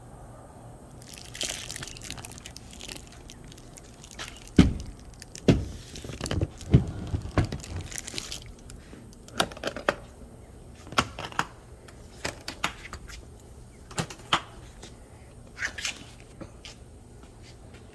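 A hard guitar case being handled and opened: rustling, with a series of sharp clicks and knocks spread over the stretch.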